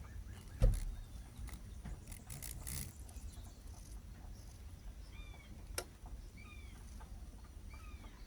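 Birds calling faintly in the background: short down-curving chirps, repeated several times in the second half. A sharp thump against the microphone about half a second in is the loudest sound, with a low steady rumble throughout and a click near the six-second mark.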